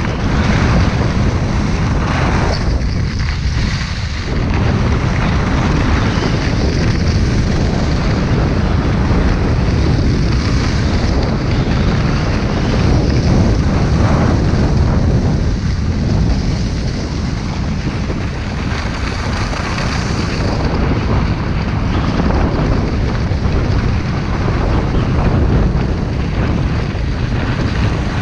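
Wind rushing over the microphone of a skier's body-worn camera during a downhill run, a loud, steady, deep rush, mixed with skis scraping over groomed snow.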